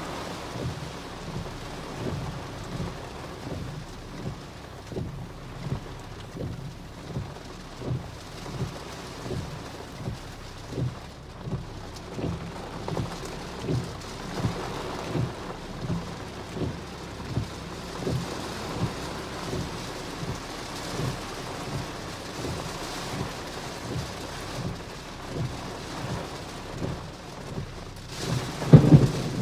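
Torrential rain pounding on a car's windshield and roof, heard from inside the car, with the windshield wipers beating in a steady rhythm a little more than once a second. A loud low rumble of thunder or a wind gust hits about a second before the end.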